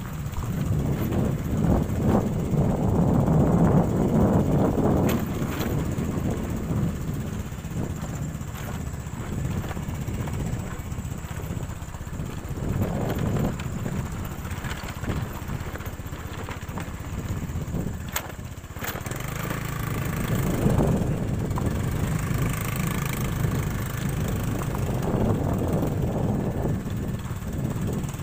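Motorcycle running under way, a steady low engine rumble mixed with rushing noise that swells and eases as the ride goes on, loudest a few seconds in and again about two-thirds through.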